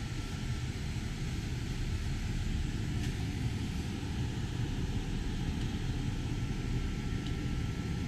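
Steady rumbling air noise, with a faint steady high tone above it, from the 12 V Mabru reverse-cycle air conditioners (compressor and blower) running on battery power with shore power cut off.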